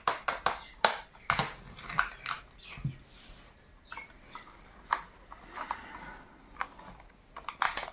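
Irregular sharp clicks and knocks of hard plastic toy parts: a toy tractor being handled and a toy screwdriver pressed and tapped against it, with a quick cluster of clicks near the end.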